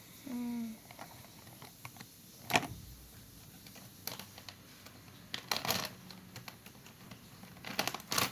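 Scattered sharp clicks and short rustling bursts from paper-craft supplies being handled on a desk, a few seconds apart. A brief hummed 'mm' just after the start.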